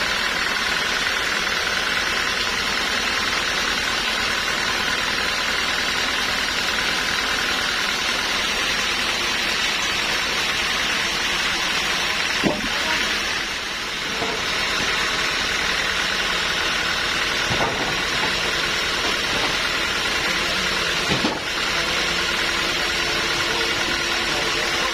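Sawmill engine running steadily at a constant pitch, with three sharp knocks: one about halfway through and two more in the later part.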